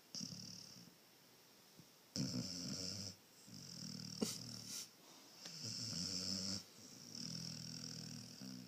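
A sleeping dog snoring, a snore on each breath, five in a row. A sharp click about four seconds in.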